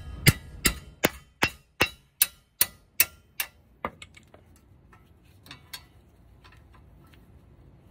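Ratcheting wrench clicking in an even rhythm, about two or three clicks a second, getting quieter and stopping about four seconds in as it backs out a front brake caliper bracket bolt. Two faint metal clinks follow a little later.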